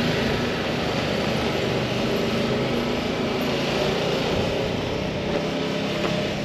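Steady hum of a motor vehicle engine running at idle, with an even hiss over it.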